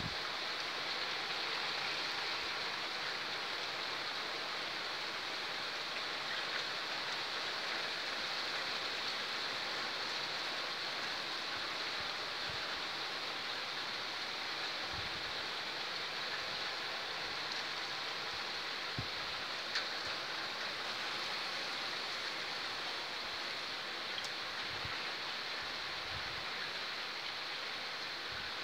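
Heavy rain falling steadily, an even hiss with a few faint low thuds scattered through it.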